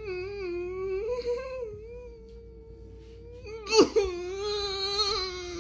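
Cartoon dog's soundtrack played through a tablet's speaker: long, wavering wordless vocal tones, like a whimper or hum. A sharp, loud hiccup comes a little under four seconds in.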